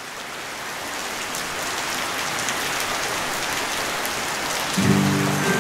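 Recorded rain sound effect opening the song: a steady hiss of falling rain that fades in, with the band's first notes entering about five seconds in.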